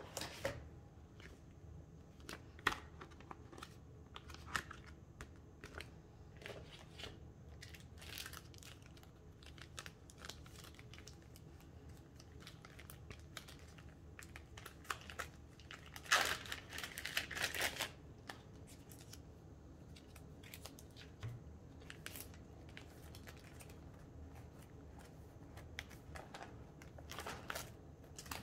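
Photocards and plastic binder sleeves being handled: intermittent crinkling and rustling with small clicks, and a louder, longer stretch of rustling about sixteen seconds in.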